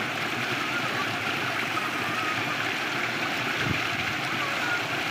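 Muddy irrigation water rushing in a steady turbulent gush along a brick-lined earthen channel, past the mouth of a concrete pipe that it is filling before flowing on through it.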